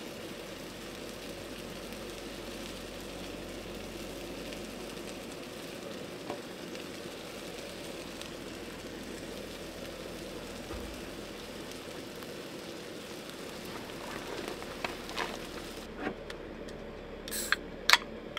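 Burgers and buttered buns sizzling steadily in pans on a camp stove. A few sharp clicks come near the end, the loudest two just before it finishes.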